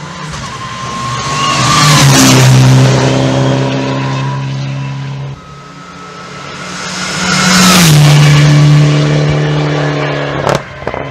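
Rally car passing at speed twice, its engine held at high revs, getting louder as it approaches and dropping in pitch as it goes by, about two seconds in and again about eight seconds in.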